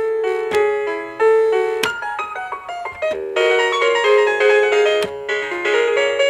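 Toy electronic keyboard's synthesized piano voice playing a string of notes, several sounding together, with a few sharp clicks among them.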